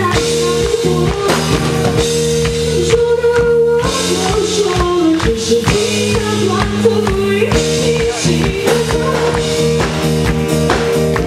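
A piano-rock trio playing a song live, with drum kit and bass under a voice singing.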